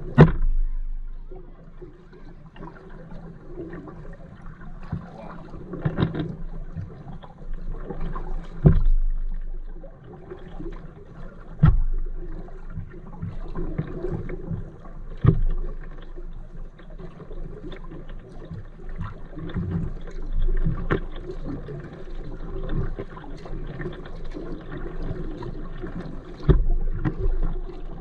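Kayak paddling: paddle blades splashing and dripping in calm water, with a few sharp knocks spread a few seconds apart.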